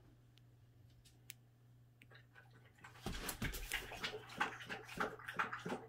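A boxer dog sniffing and snuffling at the floor in quick, irregular bursts, starting about three seconds in, after a few faint clicks.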